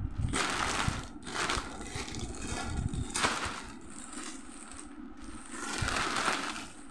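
Clear plastic packaging bag crinkling and rustling as it is handled and pulled off, in irregular bursts, loudest in the first second or so and again near the end.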